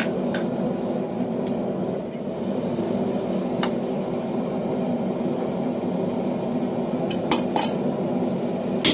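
Hammer blows on hot steel at the anvil: a couple of isolated strikes, then a quick run of ringing blows near the end, over a steady background noise.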